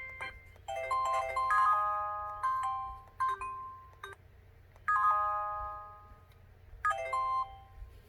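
A WPI-8800N VoIP phone's speaker playing a chiming ringtone melody of bell-like notes that ring and fade. There are three phrases: a longer one starting just under a second in, and shorter ones near five seconds and near seven seconds.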